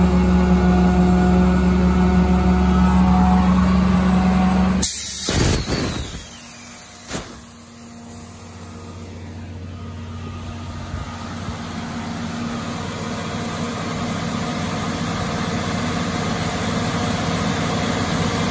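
Sullair 750 cfm portable air compressor with its Caterpillar diesel running steadily; about five seconds in the steady drone drops away with a loud burst of hissing air for about two seconds. Afterwards the machine runs on more quietly and grows gradually louder.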